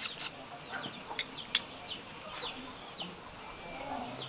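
A string of short, high chirps, each falling in pitch, with a few sharp clicks between them.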